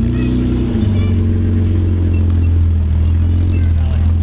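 Engine of a classic open-top sports racing car running at low revs as the car rolls slowly, with a brief rise in revs in the first second before it settles back to a steady, deep running note.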